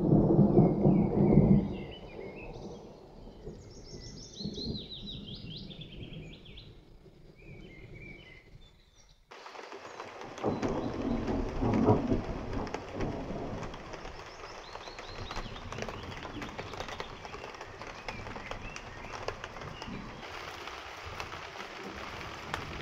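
Thunder rumbles loudly for the first second and a half, then small birds sing and chirp. About nine seconds in, the sound cuts to steady rain, with another roll of thunder a second or two later and rain continuing to the end.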